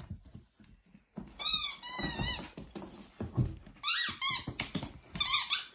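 Squeaker in a plush toy squirrel squeaking in short rising-and-falling squeals, in quick groups about a second and a half in, around four seconds and near the end, as an Alaskan Malamute puppy bites and tugs at it. Low thumps of movement lie underneath.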